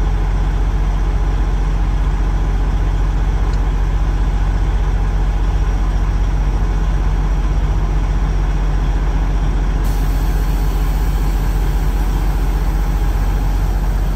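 Semi truck's diesel engine running steadily at low revs, heard from inside the cab as a constant low drone.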